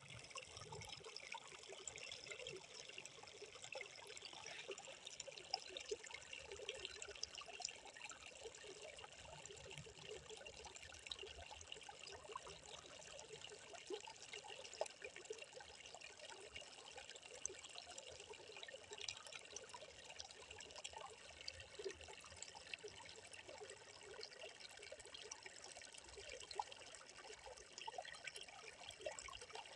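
Faint, steady trickling of a small flow of water welling out of the ground and running over soil and pebbles.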